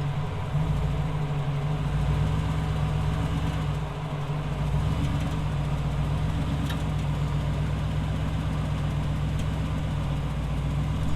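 Off-road vehicle engine idling steadily.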